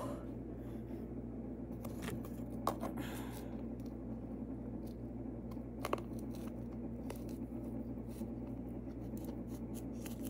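Light scrapes and clicks of a plastic butter tub being handled, with a few sharper clicks about two, three and six seconds in, over a steady low hum.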